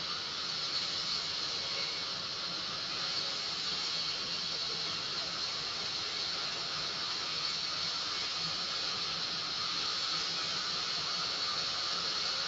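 Sawmill machinery running: a steady hiss with a high whine that does not change.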